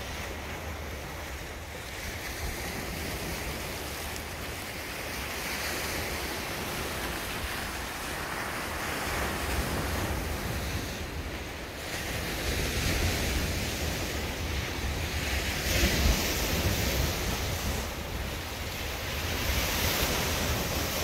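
Choppy lake waves washing and breaking against a rocky shore, with wind buffeting the microphone as a low rumble. The surf swells louder every few seconds.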